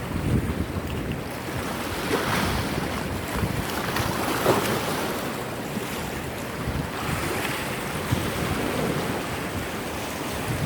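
Sea waves washing in on a beach, swelling several times, with wind buffeting the microphone.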